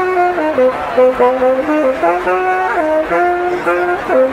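A brass instrument playing a melody of held notes that step up and down, with a few smooth slides between notes.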